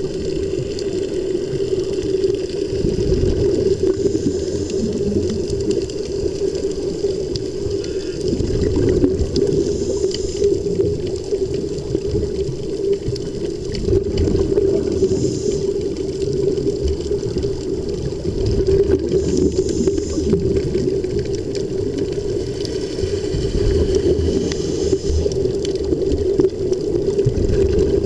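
Underwater bubbling and rumbling from air streaming out of helmet-diving helmets, heard through water, over a steady low hum. Brighter bursts of bubble hiss come about every five seconds.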